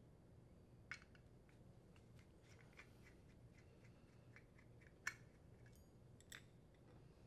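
Faint small metal clicks and ticks of a Phillips screwdriver turning small screws out of a metal bearing retaining plate. There is a sharper click about a second in, light ticking in the middle, and two more sharp clicks near the end.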